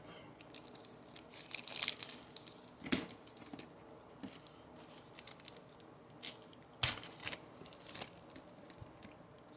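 Baseball trading cards and their foil pack wrapper being handled: scattered rustling and crinkling with a few sharp snaps, the loudest about 3 s and 7 s in.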